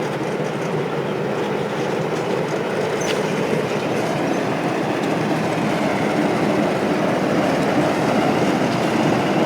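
Train running along the rails: a steady rumble that grows slightly louder.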